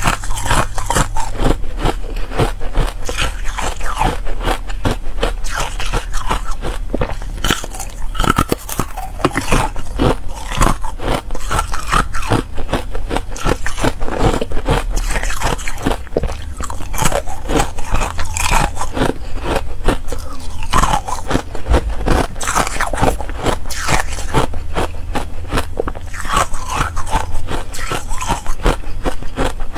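Buckwheat ice being bitten and chewed close to the microphone: a dense, continuous run of crisp cracks and crunches.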